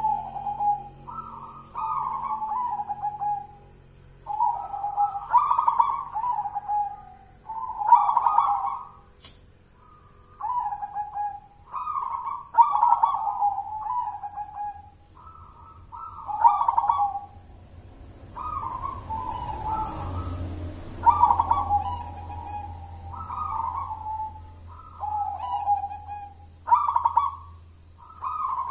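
Zebra dove (perkutut) cooing in a long series of phrases. Each phrase is a rolling coo of a few notes lasting one to two seconds, with short pauses between. The voice is full and deep (tebel).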